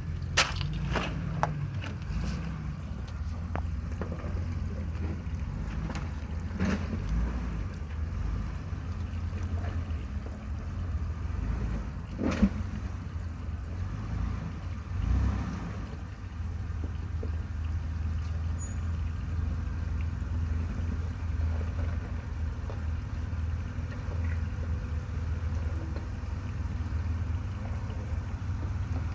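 Jeep Wrangler crawling along a rocky off-road trail: a steady low engine rumble with a few sharp knocks and clunks from the rocks and suspension. The loudest knock comes about twelve seconds in.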